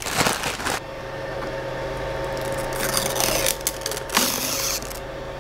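Creality LD-001 DLP resin 3D printer just switched on, running with a steady hum that starts about a second in. A rustle of plastic comes at the start, and a few more handling noises follow.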